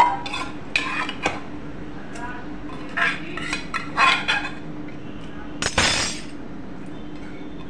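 Metal kitchen utensils clinking and clattering: a spoon knocking and scraping against steel dishes in a string of separate clinks, over a faint steady hum.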